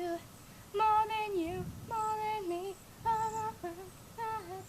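A high voice singing a wordless tune in a series of short held notes, about five phrases with brief pauses between them.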